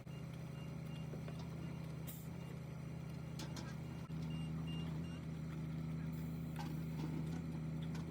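Large engine running steadily at a concrete slab pour, with faint repeated high beeps like a reversing alarm in two short runs.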